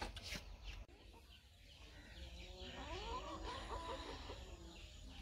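Chicken calling faintly, one drawn-out call about halfway through that bends up and down in pitch, with small birds chirping faintly.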